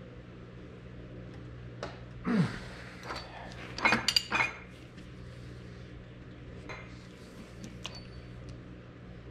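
Steel hand tools clinking on the transmission's counter shaft nut and case: a short scrape about two seconds in, then a quick cluster of sharp metallic clinks around four seconds in, over a steady low hum.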